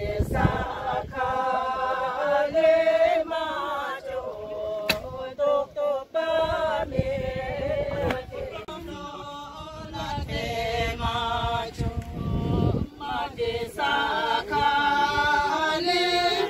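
A group of women singing together in unison: a traditional Bhutanese song with long held notes, of the kind women sing at archery matches.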